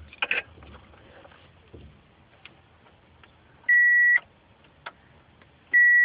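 Electronic warning beep from the dashboard of a 1990 Subaru Legacy, set off when the key goes into the ignition: one steady high-pitched tone about half a second long, then the same tone starting again near the end and holding on. The cause is unknown to the owner, who is trying to diagnose it. A few faint clicks come in between.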